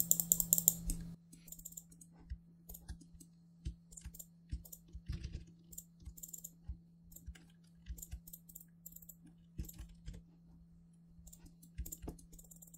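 Sparse, irregular clicks of a computer mouse and keyboard keys being pressed, quiet, over a faint steady low hum.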